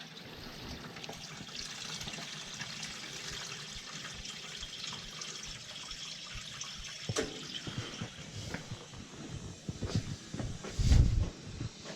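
Pressurized water rushing through a hose and a hot water heating loop as it is forced in to purge trapped air from the loop. A loud thump comes near the end.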